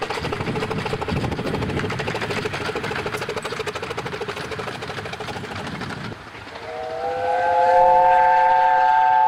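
Dr Syn, a 15-inch-gauge steam locomotive, running with rapid, even beats. About six and a half seconds in it sounds a long chime whistle of several notes at once, a whistle taken from the LNER A4 Pacific Dominion of Australia; it slides briefly up into pitch and then holds steady.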